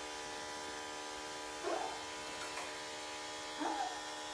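Electric grooming clippers running with a steady buzz, with two brief higher sounds about two and four seconds in.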